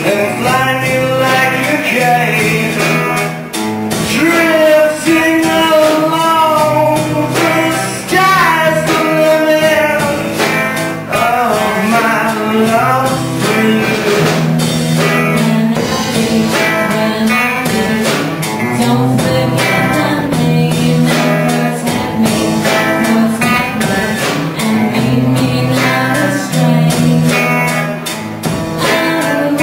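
A song with a voice singing over guitar and a steady beat.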